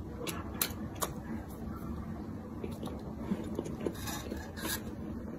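A person chewing a mouthful of soft crumb-coated filled bread, with a few sharp wet mouth clicks.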